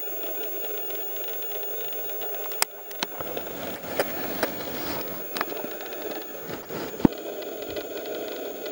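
Handling noise from a hand-held camera being moved and panned: a scatter of sharp clicks and knocks, the loudest about seven seconds in, over a steady low hum.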